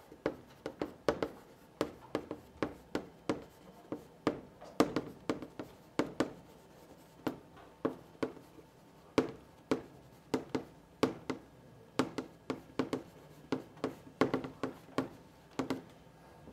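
Chalk writing on a blackboard: an uneven string of sharp taps and short strokes, about two to three a second, as Chinese characters are written by hand.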